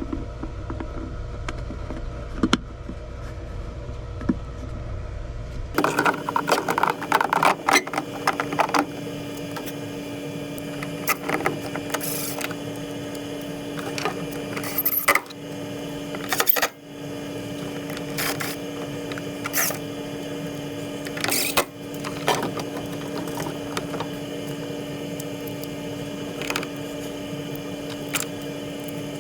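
Hand-tool and metal-part clicks and knocks from working on a furnace draft inducer, scattered over a steady machine hum that changes abruptly about six seconds in.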